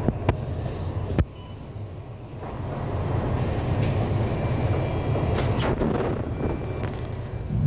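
Bus running along the road, heard from on board: a steady low engine and road rumble with a couple of sharp knocks in the first second or so. The noise drops suddenly just after the second knock, then builds again from about two and a half seconds in.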